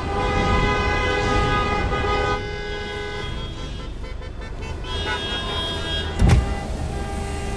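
Traffic-jam sound: car horns held in long honks over a steady low rumble of engines, the horns easing off a couple of seconds in and honking again later, with one loud thump about six seconds in.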